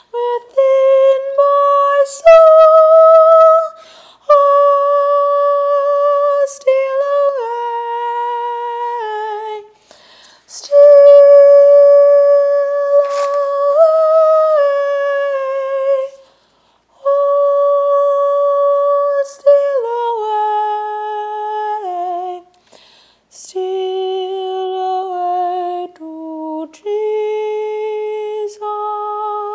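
A woman singing solo and unaccompanied, holding long notes with vibrato, phrase after phrase, with short breaks for breath between them.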